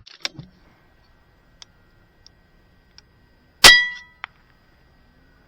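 A single shot from an RTI Arms P3 PCP air rifle fitted with a moderator: a sharp report with a short metallic ring, followed about half a second later by a fainter tick. A few light clicks come before the shot.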